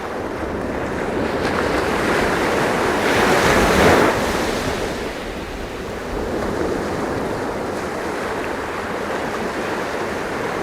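Sea waves washing in, one wave swelling to its loudest about four seconds in and then falling away into a steady wash.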